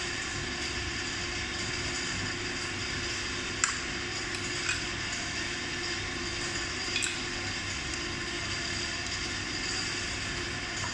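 A few light metallic clicks as a hex key is turned in a screw on an electric scooter's deck, the sharpest about three and a half seconds in and a double click about halfway through, over a steady background hum.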